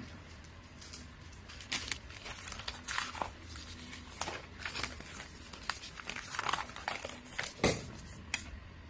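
Gift wrapping being handled, rustling and crinkling in irregular bursts with a few sharp clicks.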